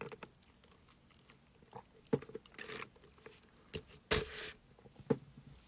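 Sipping an iced drink through a plastic straw from a plastic cup: quiet slurps and swallows with small clicks, the loudest slurp about four seconds in.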